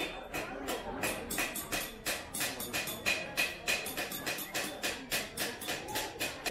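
Rapid, even metal taps, about four or five a second, with a bright ringing tone: a hand hammer striking a chisel to engrave a brass vessel.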